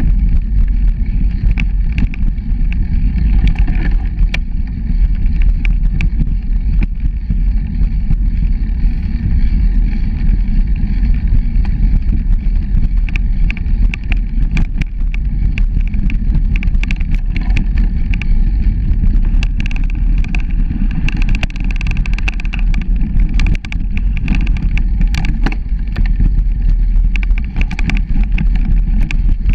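Bicycle riding on a leaf-covered dirt forest trail: a steady low rumble of wind on the microphone and tyres on the ground, with frequent sharp clicks and rattles as the bike goes over bumps.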